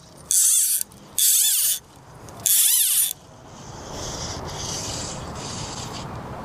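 Fly reel's click-and-pawl ratcheting in three short, loud bursts, about a second apart, as line is wound or pulled off the spool. Fainter clicking follows in the second half.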